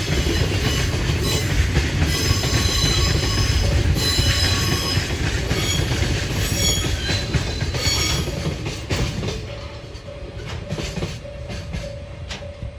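Container freight train of flat wagons rolling past on the tracks: a loud low rumble with high-pitched wheel squeal. About nine seconds in the rumble eases, leaving separate wheel clicks over the rail joints.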